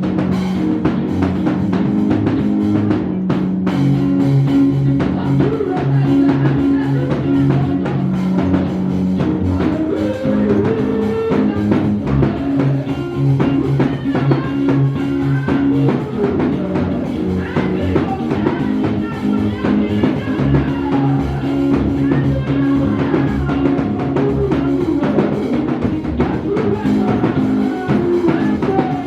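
Band music with a steady beat: drum kit, bass and guitar playing together.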